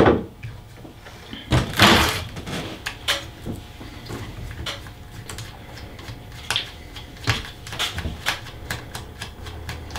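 Irregular clicks and light clatter of a screwdriver working screws on a moulded case circuit breaker and its parts being handled, with a louder rattle about two seconds in.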